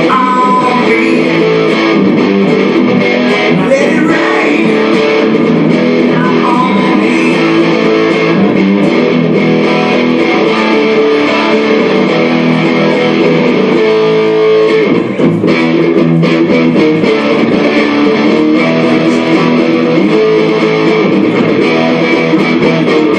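Music led by guitars, with electric guitar and bass, playing steadily; it drops away briefly about fifteen seconds in.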